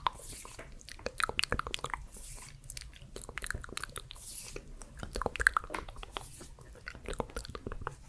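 ASMR mouth sounds close to the microphone: rapid, irregular wet clicks and smacks of the lips and tongue.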